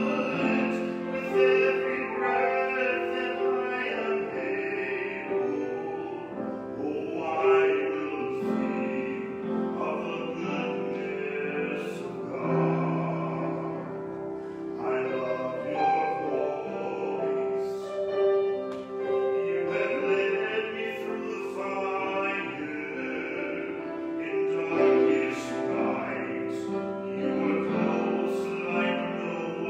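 A man singing a solo in a trained, classical style, accompanied by piano.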